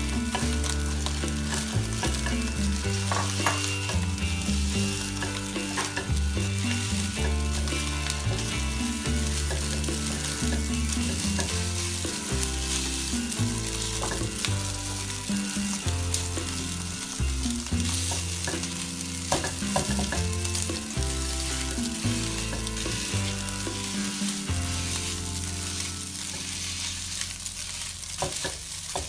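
Egg fried rice being stir-fried in a nonstick wok: a steady sizzle, with the spatula scraping and knocking against the pan now and then as it turns and breaks up the rice.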